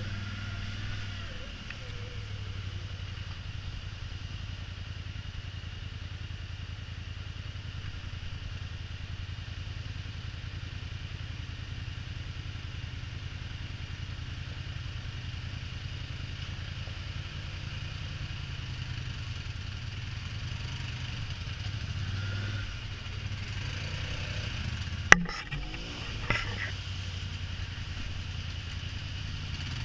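Polaris Sportsman ATV engine running steadily at low speed on a rocky trail. Near the end comes one sharp knock, then a smaller one about a second later.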